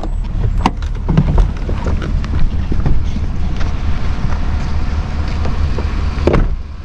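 Steady low rumble of a vehicle driving slowly, with a few scattered knocks and clicks.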